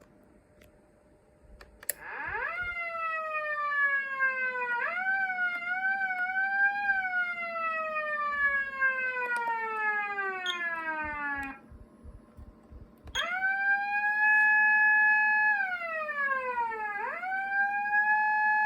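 A Patlite SAP-500BK-PV electronic police siren amplifier sounding a Japanese police-car wail. The first run is in manual mode, starting about two seconds in: the pitch shoots up, wavers as the control is worked, then winds slowly down and cuts off. After a second and a half of quiet, a click starts the automatic 4-second cycle: a quick rise to a held high tone, a fall, and a rise back to the high tone.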